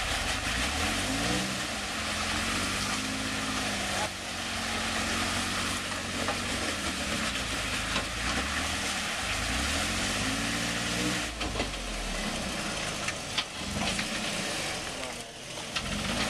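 Toyota Tacoma pickup's engine working the truck over rock ledges at low speed, revving up and back down about a second in and again around ten seconds in, over a steady hiss.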